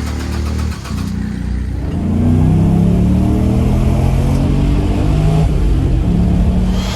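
LS6 V8 engine running and being revved, its pitch climbing about two seconds in and staying high through a loud exhaust.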